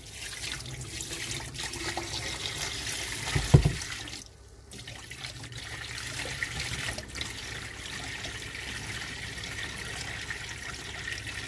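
Water pouring in a steady stream from a large dehumidifier's full collection tank into a sink and running down the drain. There is a low thud about three and a half seconds in, and a brief lull just after it.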